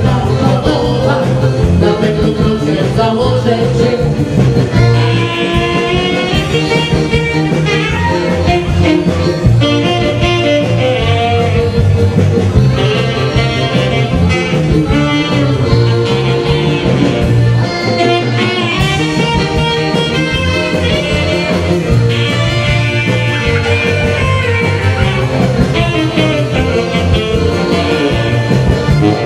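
A live Polish biesiada dance band playing an upbeat dance tune, with saxophone, accordion, drums and bass guitar and a regular beat.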